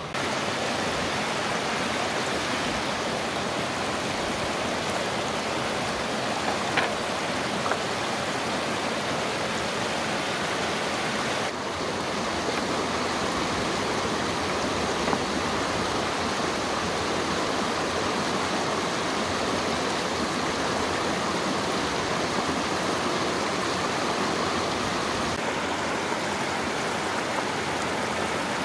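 Mountain stream rushing steadily over rocks, with two brief ticks about seven seconds in.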